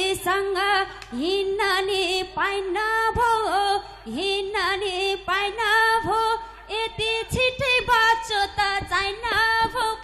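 A woman singing a Nepali lok dohori verse unaccompanied through a microphone, in phrases with short breaks between them.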